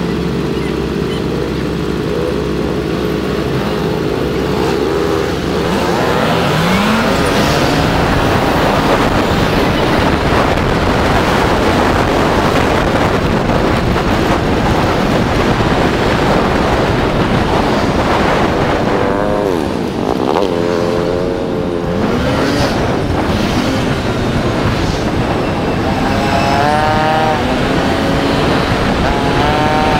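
Motorcycle engine idling in traffic, then revving up and pulling away about six seconds in. After that, engine, wind and road noise at riding speed, with the engine note falling and rising several times as the bike slows and speeds up.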